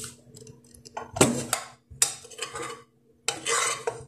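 Metal spoon scraping and clinking against a cooking pan in three short bursts, about a second apart, as fried onion and carrot topping is scraped out onto rice in a stainless steel pot.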